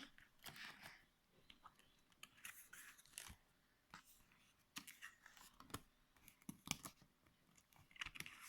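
Faint, scattered clicks and short rustles of a cardboard board book being handled and its stiff pages turned, over near-silent room tone.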